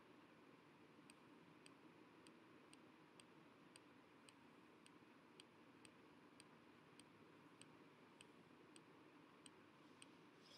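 Near silence: low hiss with faint, evenly spaced ticks, about two a second.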